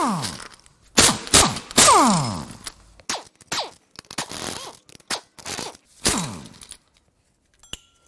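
Impact wrench hammering bolts loose on the front of the engine in several short bursts, its motor whine falling steeply in pitch as it winds down after each trigger release. It is quiet for the last second or so apart from a faint click.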